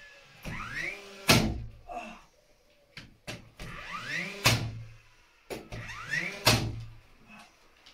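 Cordless nail gun fired three times into timber ceiling joists: each shot is a short whirr rising in pitch as the motor winds up, then a sharp bang as the nail is driven.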